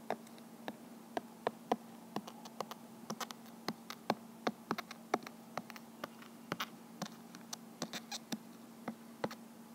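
Stylus tip ticking on an iPad's glass screen as words are handwritten: light, irregular clicks about three a second, over a steady faint hum.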